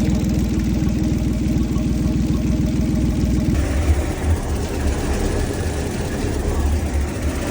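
An engine idling with a fast, even pulse, changing to a lower, rougher rumble about three and a half seconds in.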